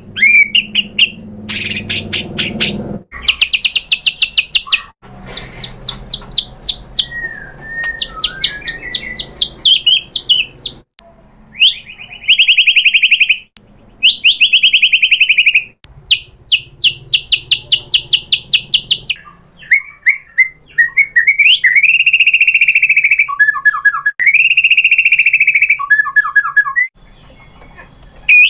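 White-rumped shama (murai batu) singing loudly in full song: strings of fast, rattling trills and sharply repeated notes, broken by short pauses, then clear whistled phrases over the last several seconds.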